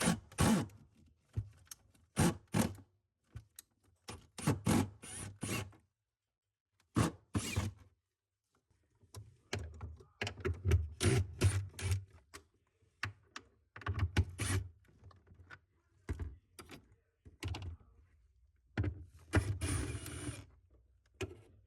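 Irregular knocks, clunks and light scrapes of hands and tools working on plastic parts and panels inside a refrigerator's freezer compartment, with a brief pause about six seconds in and a longer scraping rustle near the end.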